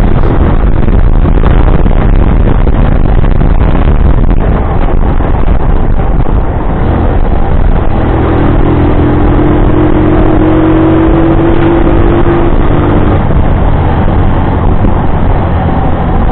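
Italika FT150 GTS motorcycle on the move: a loud, steady low rumble of the single-cylinder engine. A steady two-note tone sounds for about five seconds in the middle.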